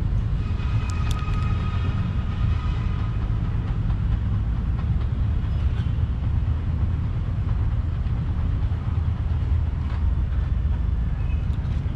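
A steady low rumble, with faint high tones over it in the first few seconds.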